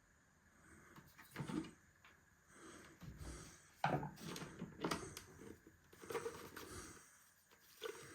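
Scattered knocks and clatter of kitchen items being handled, several short thumps with the loudest about four seconds in.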